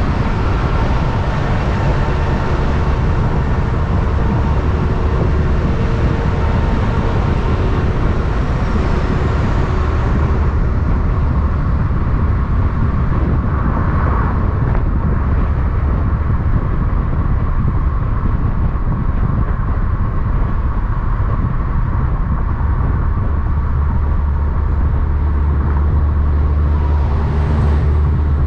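Heavy diesel semi truck running, a steady low rumble through loud exhaust pipes, with the higher-pitched part of the sound falling away about ten seconds in.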